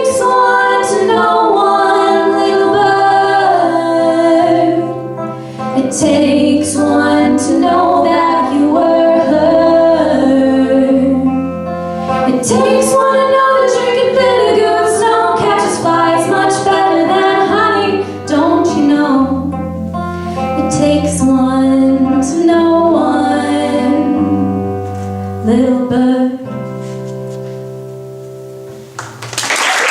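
Live song: female voice singing over acoustic guitar, ending on a held guitar chord; applause breaks out at the very end.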